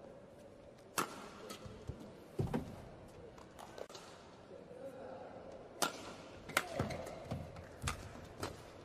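Badminton hall sounds: irregular sharp cracks of racket strikes on a shuttlecock and a few dull thuds, over a steady faint hall murmur.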